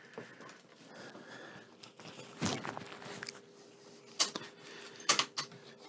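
Faint rubbing and a few sharp clicks and knocks of handling as a bare golf club shaft is cleaned of leftover grip tape.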